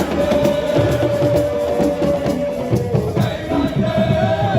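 A crowd singing and chanting over music. One long held note runs through the first two and a half seconds, and another comes near the end.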